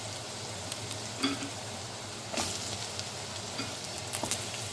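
Chopped onion and garlic frying in hot oil in a pot, a steady sizzle, with a few short knocks as potato pieces are added and stirred in.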